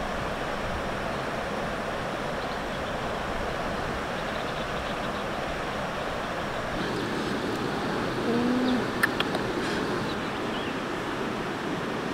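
River water running steadily over rocks. About eight seconds in a brief low two-tone call sounds, followed by a sharp click.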